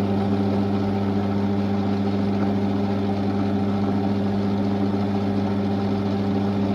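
Warco GH1330 geared-head lathe running steadily with its spindle in low gear, giving an even hum with gear whine.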